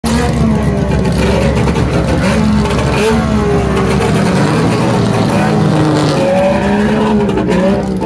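Saab 93 race car's three-cylinder two-stroke engine running close by, its pitch rising and falling with light throttle blips as the car rolls slowly past.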